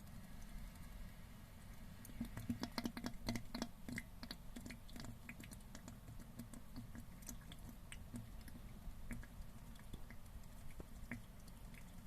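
Mud crab breathing: a faint, rapid, irregular crackle of small clicks and pops from its mouthparts. It is thickest about two to four seconds in, then thins to scattered clicks.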